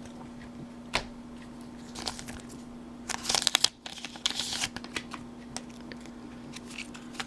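Trading cards handled with a few light taps, then a foil Pokémon booster pack wrapper crinkled and torn open in two short bursts, about three and four seconds in.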